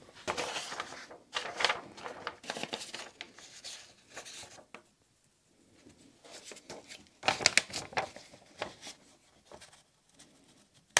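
A sheet of paper rustling and crinkling as it is pressed down over a fan motor's shaft, with a pencil scratching across the paper as hole positions are traced onto it. The sounds come in irregular bursts, loudest a little past the middle.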